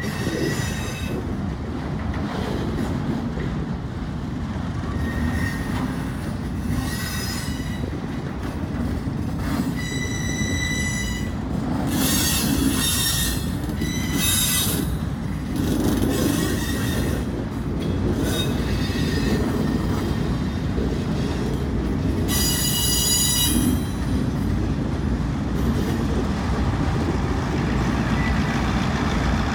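Autorack freight cars rolling past with a steady low rumble, their steel wheels squealing in repeated high-pitched bursts, loudest around the middle and again a little after 20 seconds in.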